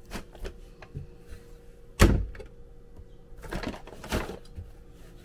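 Bottles of cleaning supplies being handled and taken out of a cabinet: scattered light clicks and knocks, one sharp knock about two seconds in, and a brief rustle near the end.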